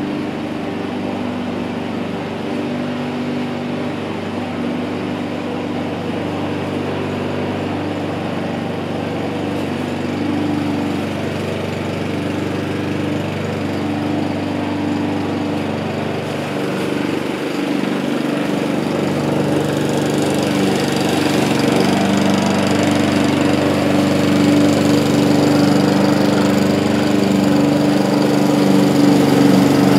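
A Honda self-propelled walk-behind lawn mower's engine running steadily under load. It grows louder in the second half.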